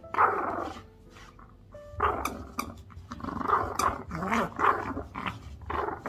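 Small puppy growling and yapping in play while tussling with a hand. There is one burst of growling just after the start, then a quick run of short growls and yips from about two seconds on.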